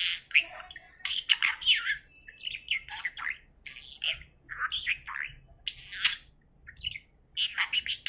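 Pet budgerigar talking: a fast run of short, high, chattering phrases imitating human words such as "okay" and "Bibi kiss", with a kissing smack among them midway through.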